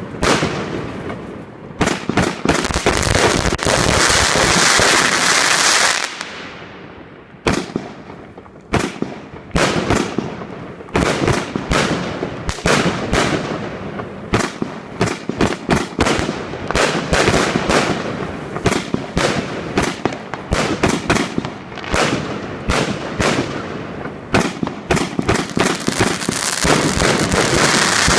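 A 160-shot consumer firework cake firing in rapid succession: a fast string of sharp bangs and pops, with stretches of dense crackling, one of which dies away about six seconds in.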